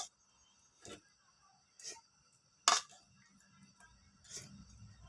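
A few short, light clicks about a second apart, the loudest near the middle: a kitchen utensil knocking against a mixing bowl while a salad is being tossed.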